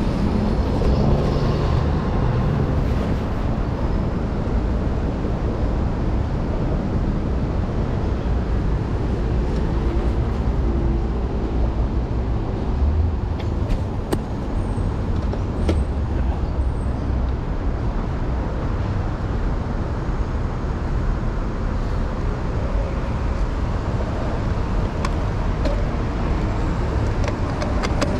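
Steady city road traffic noise heard from a moving bicycle, with motor vehicles passing and a low rumble. A few sharp clicks come midway through.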